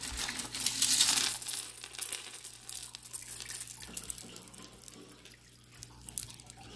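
Costume jewelry being rummaged through by hand: a rustling clatter for about the first second and a half, then scattered light clicks of pieces knocking together.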